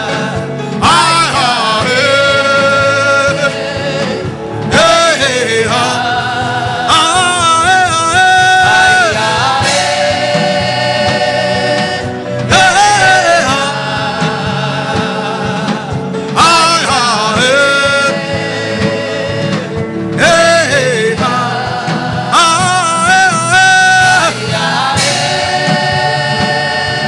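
Gospel worship song: a singer repeating short sung phrases with sliding, ornamented notes over steady backing music.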